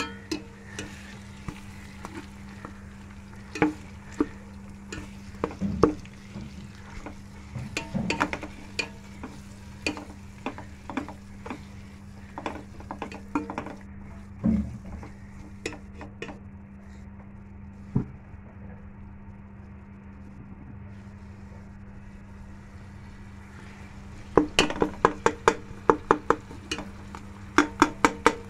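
Steel ladle stirring minced meat into frying masala in a pressure cooker pot, knocking and scraping against the metal, over a faint sizzle of oil. Near the end the strokes come fast, about four a second.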